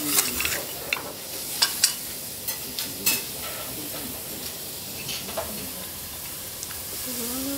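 Food sizzling steadily on a hot teppanyaki steel griddle, with sharp clicks and clinks of utensils every second or so, most of them in the first half.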